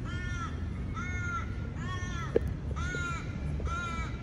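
A crow cawing over and over, about one caw a second, five caws in all. A single sharp click about halfway through is the loudest instant.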